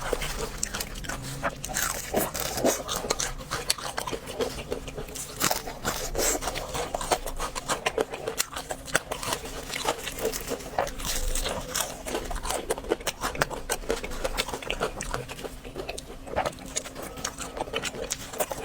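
Close-miked eating of crispy fried food: a dense, irregular run of crunching and crackling bites and chews.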